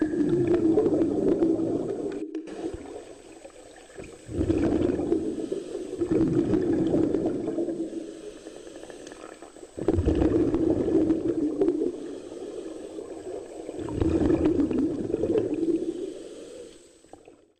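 Scuba regulator exhaust bubbles heard underwater: a diver's exhaled breath burbling out in repeated bursts about every four to five seconds, with quieter stretches between breaths. The sound fades out near the end.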